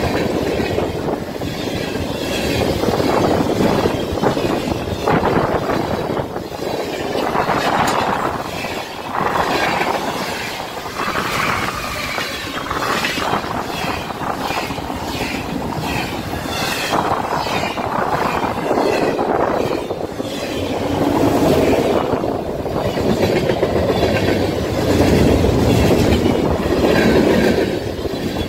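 Freight train passing close by at about 50–60 mph: a steady rush from the cars, with the wheels clicking over the rail joints.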